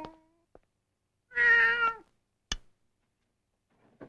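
A domestic cat meowing once, a call of about half a second that falls slightly in pitch; a single sharp click follows about a second later.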